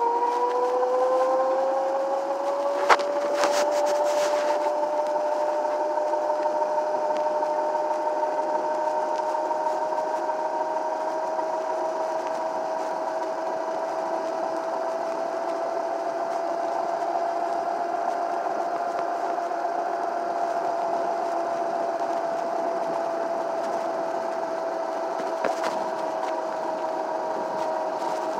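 A Schwinn S500 electric scooter's 500-watt 24-volt motor whines under power as the scooter rides along. Its pitch rises over the first few seconds as the scooter gathers speed, then holds steady. There is a sharp click about three seconds in.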